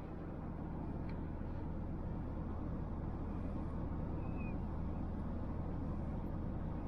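Steady low engine hum and rumble of a van running, fading in at the start and out near the end.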